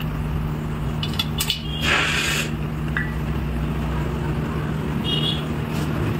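Steady low machine hum with a few sharp metal clicks about a second in and a short hiss soon after, as the screw handle of a tyre vulcanizing clamp is turned down onto the sidewall repair.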